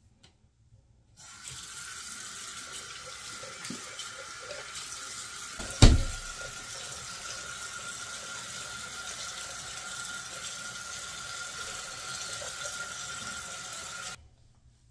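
A steady rushing hiss with a faint high steady tone in it, starting suddenly about a second in and cutting off suddenly near the end. A single loud thump about six seconds in.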